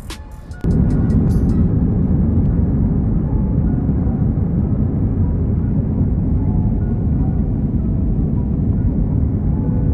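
Jet airliner cabin noise during takeoff and climb, heard from a window seat: a loud, steady low rumble of engines and airflow that cuts in abruptly about half a second in, replacing music.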